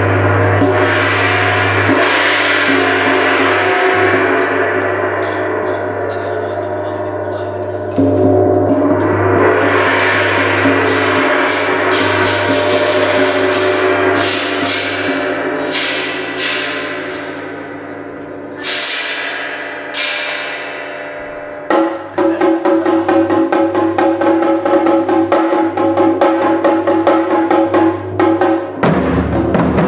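Instrumental music mixing taiko drums with modern sounds, with no shouted calls. For the first twenty seconds there are sustained gong-like swells and a series of ringing metallic hits. About 22 s in, it breaks into a fast, even drum rhythm.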